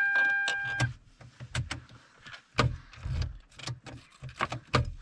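Keys working a newly fitted ignition switch in a car: a string of sharp clicks and knocks with low thuds. Near the start the car gives a steady electronic warning tone for just under a second.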